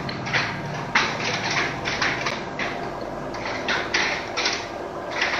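Irregular knocks and thumps over a steady hiss, which the person recording takes for footsteps in the attic overhead.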